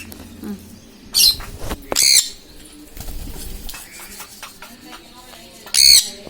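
African lovebirds in a cage giving three short, loud, high-pitched calls, with faint clicks and rustling between them.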